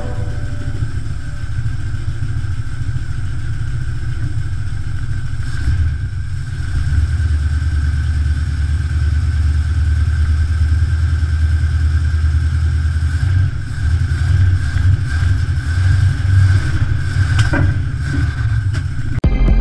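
International Harvester 345 V8 idling steadily on its freshly rebuilt Holley four-barrel carburetor. Near the end the engine note rises and falls a few times as the throttle is worked by hand at the carburetor.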